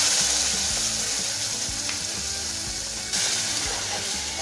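Wet tomato paste hitting hot mustard oil in a kadai, sizzling loudly at first and slowly dying down. It flares up again about three seconds in as the paste is stirred.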